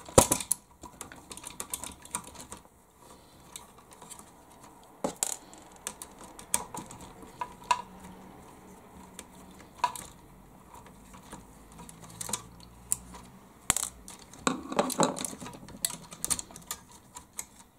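Irregular light clicks and taps of a small screwdriver working tiny screws out of a plastic 1/16 scale RC truck chassis, with small screws and plastic parts being handled, more of them together about three-quarters of the way in.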